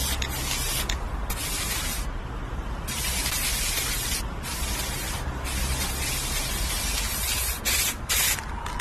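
Aerosol spray-paint can hissing in about six bursts with short pauses between them, the longest about two seconds.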